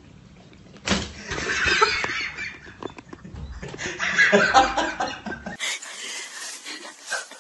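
A man laughing in two main bouts, then a cut to a quieter stretch of faint room noise near the end.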